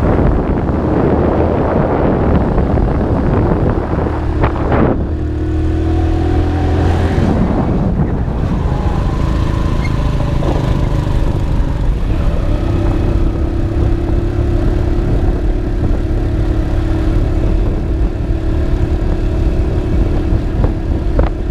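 Motorcycle engine running under way, heard from the pillion seat with wind noise on the microphone; the engine note shifts as it changes speed, and a couple of brief sharper sounds come about five and seven seconds in.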